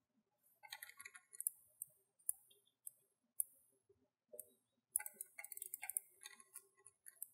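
Light clicking of a computer mouse and keyboard: a few scattered clicks, then a quick run of clicks about five seconds in.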